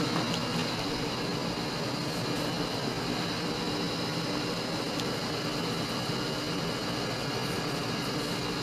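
Steady hum and hiss of room air conditioning running, with a faint click about five seconds in.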